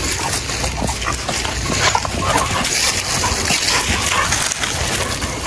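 Two dogs play-fighting, biting and tussling with each other in play, over a steady low rumble.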